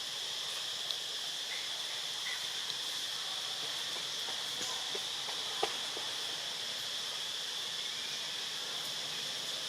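Steady high-pitched drone of insects, with a few faint clicks or snaps over it, the sharpest about halfway through.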